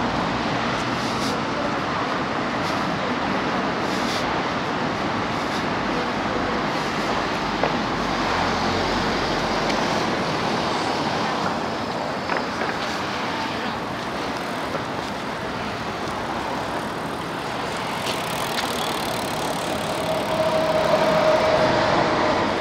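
Road traffic on a city street: cars passing with a steady rush of engine and tyre noise. Near the end a short steady whine rises above it.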